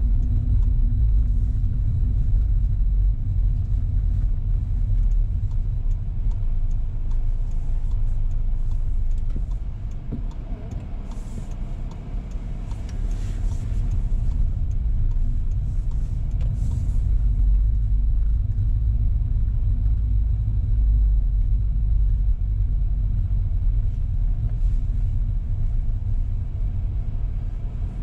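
Car cabin road noise: a steady low rumble of tyres rolling over cobblestone streets. It eases off about ten seconds in and builds back up a few seconds later.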